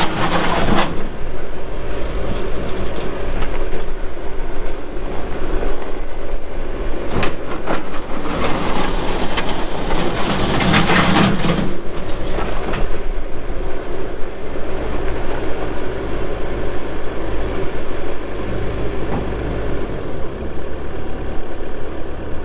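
Bobcat S770 skid steer loader's turbo-diesel engine running steadily under work. There are louder surges about a second in, around seven seconds, and from about ten to twelve seconds in.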